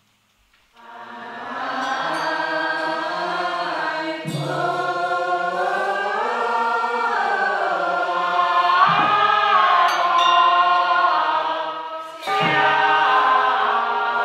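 Group of worshippers chanting a Buddhist sutra in unison, starting a moment in. The chant is marked by three sharp percussion strikes, about four, nine and twelve seconds in.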